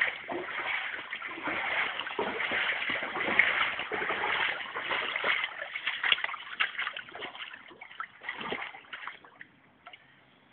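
Floodwater splashing and sloshing in a dense, continuous run. It thins out and fades away over the last couple of seconds.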